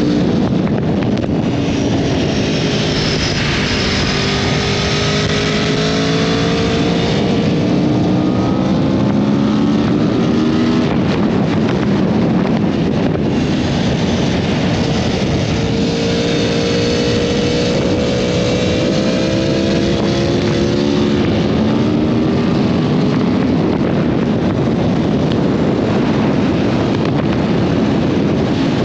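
Four-cylinder sport motorcycle engine running at road speed, its note climbing and dropping through two long stretches of throttle, over steady wind rush on the microphone.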